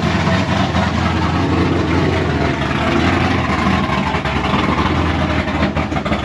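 Naturally aspirated 454 cubic-inch LS Warhawk V8 in a pickup running at idle, loud and steady.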